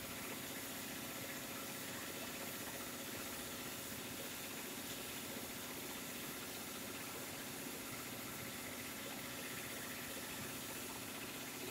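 CNC profile cutting machine running a cut: a steady hiss over a low, even hum.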